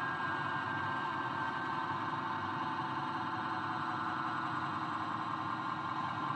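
Steady engine and road noise of a Mercedes-Benz car, heard from inside the cabin while it cruises.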